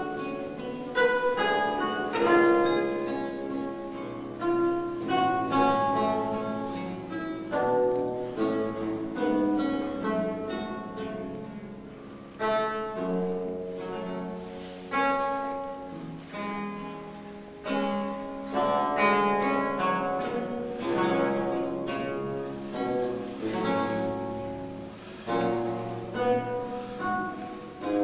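Solo theorbo playing slow early music: plucked single notes and chords that start sharply and ring away.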